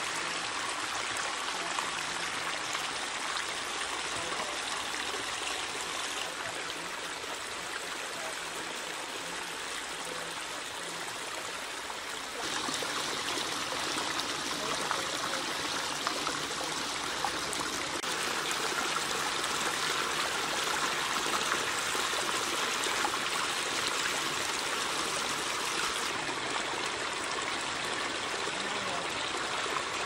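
Small pondless waterfall: water spilling over boulder drops and splashing into a foamy basin, a steady rushing splash that shifts in tone a few times.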